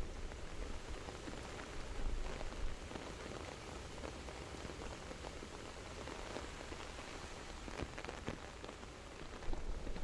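Rain ambience: a steady hiss of falling rain with scattered individual drop ticks.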